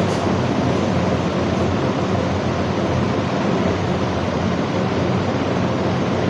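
Steady rushing background noise with a low hum underneath, and a single short click at the very start.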